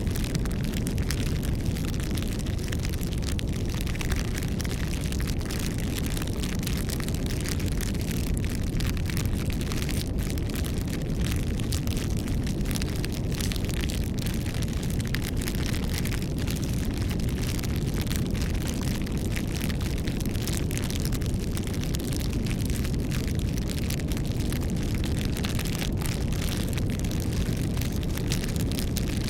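Campfire burning: a steady low rumble of flame with many small irregular crackles and pops from the burning wood.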